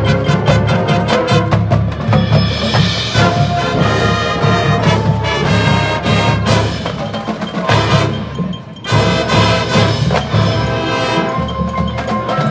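High school marching band playing: sustained band chords over percussion, with rapid drum strokes in the first two seconds and a brief drop in the sound about eight and a half seconds in.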